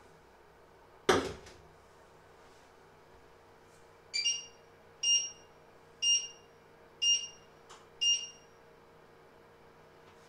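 A frying pan set down on a cooktop with one sharp knock, then five short high electronic beeps about a second apart from the cooktop's touch controls.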